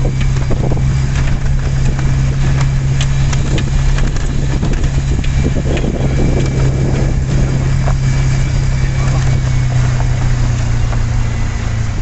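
Vehicle engine running with a steady low drone, heard from inside the cab while driving over a gravel dirt road, with tyre noise and occasional knocks and rattles.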